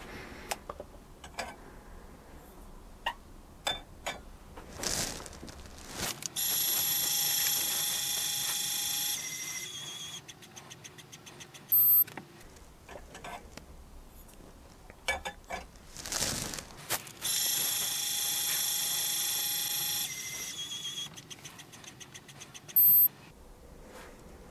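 Lyman Gen6 electronic powder dispenser running two automatic dispensing cycles toward a 30-grain charge. Each cycle is a steady high motor whine for about three seconds, then a few seconds of fading quick ticks, and ends in a short high beep that signals the charge is complete. Before each cycle come a few clicks and a brief rush of sound.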